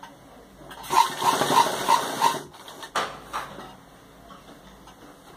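Sewing machine stitching in a short run of about a second and a half, with an even beat about three times a second, top-stitching along a curved patch-work seam. A sharp click follows about halfway through.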